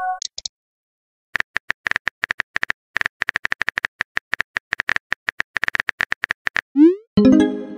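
Chat-app sound effects: a rapid run of keyboard typing clicks, about six a second, lasting some five seconds, then near the end a short rising whoosh and a bright multi-tone chime as the message is sent. A chime's tail fades out at the very start.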